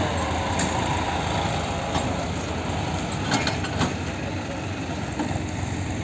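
New Holland tractor's diesel engine running under load as it pulls a sugarcane-laden two-wheel trailer slowly past, with the steady rumble of the rolling trailer and a few sharp clanks from its body and hitch.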